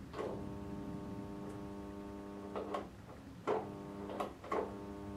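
Steady mains buzz from a high-voltage transformer rig wired into an alarm clock's circuit board, with about five sharp clicks, most of them between two and a half and four and a half seconds in.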